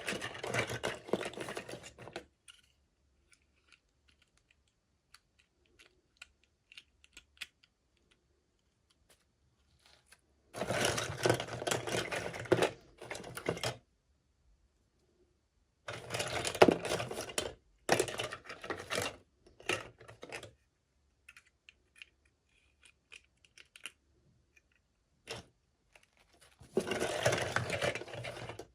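Hands unboxing small plastic toy miniatures: four bursts of packaging rustling and crinkling, each two to four seconds long, with scattered light clicks of small plastic pieces in between.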